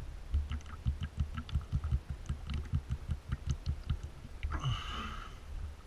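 A person gulping water from a plastic bottle: a steady run of low swallowing thumps, about four a second, then a breathy exhale about four and a half seconds in.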